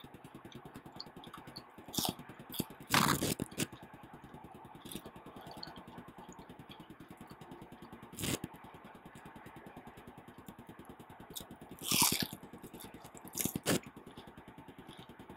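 Eating sounds: a handful of short scrapes and clicks as food is handled, scooped and chewed, with the loudest around three seconds in and again near twelve seconds. A faint steady background hum lies under them.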